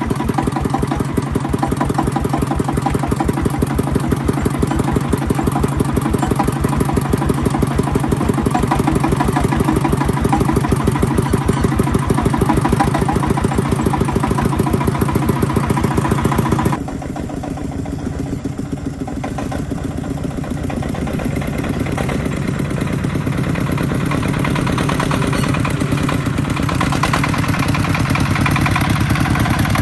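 Agricultural vehicle's engine running with an even, regular pulse. About two-thirds of the way through it suddenly drops to a quieter, duller note, then slowly builds again.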